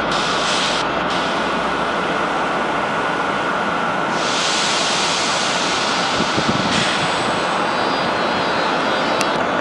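Steady rushing hiss with a faint constant whine from an SNCF BB 26000 electric locomotive's cooling blowers. The hiss grows brighter about four seconds in and eases back a few seconds later.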